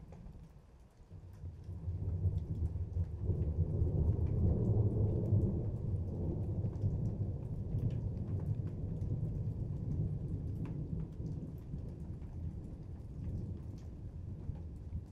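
Thunder rolling during a rainstorm: a deep rumble that builds about two seconds in, is loudest around five seconds, then slowly trails off. Scattered raindrops tick throughout.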